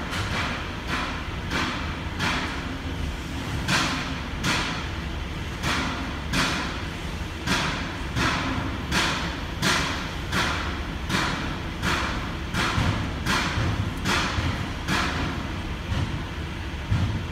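Truck running with a steady low rumble, overlaid by a regular short swishing sound about every 0.7 seconds.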